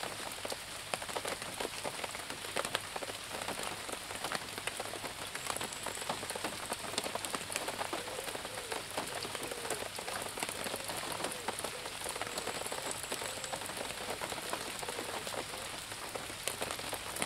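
Heavy rain falling, a dense, steady patter of many individual drop hits.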